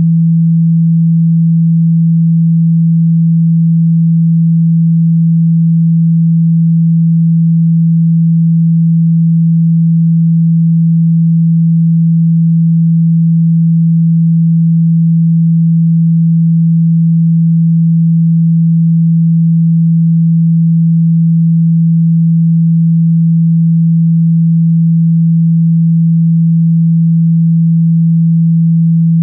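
A loud, steady 165 Hz sine tone, one low pitch held without change: the speaker-cleaning tone played to vibrate water out of a phone's loudspeaker.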